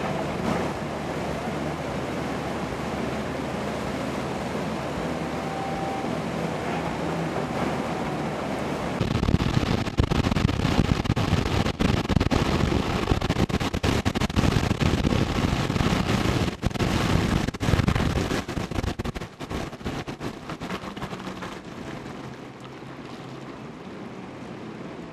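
A machine's engine running with a steady low hum over rushing water. About nine seconds in this gives way to louder, rough wind buffeting on the microphone over floodwater rushing across a road, which eases to a steadier rush of water near the end.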